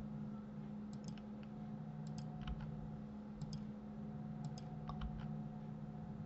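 Quick clicks from a computer mouse and keyboard, many in close pairs, about once a second, over a steady low electrical hum.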